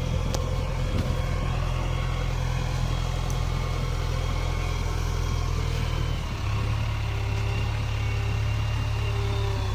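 JCB 3DX backhoe loader's diesel engine running steadily, its note shifting slightly about six seconds in.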